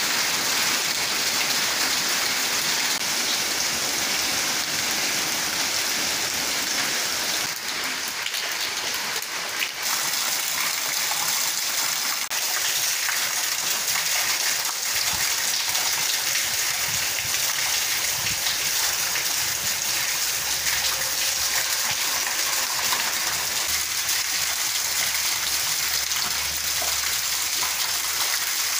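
Steady rain falling on leafy shrubs, an even hiss of drops throughout.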